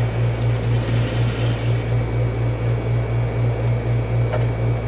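Juki industrial sewing machine running, a steady low hum that pulses about five times a second. A single short click comes near the end.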